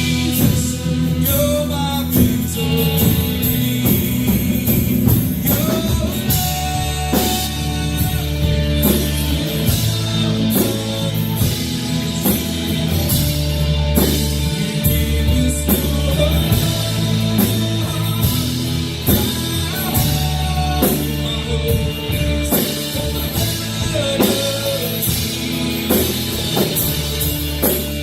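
Live worship band playing a song: a sung lead vocal over guitar and a drum kit, at a steady full level.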